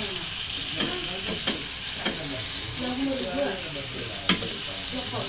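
Steak frying in a pan, sizzling with a steady hiss, broken by a few sharp clicks of a utensil against the pan, the loudest about four seconds in.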